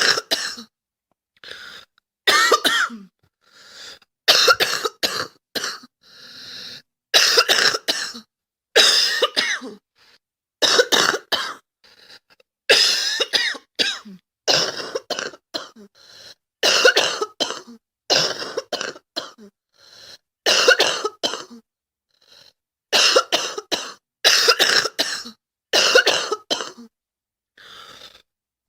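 A girl coughing over and over, in bouts of two or three coughs that come about every two seconds, with quieter breaths drawn in between the bouts.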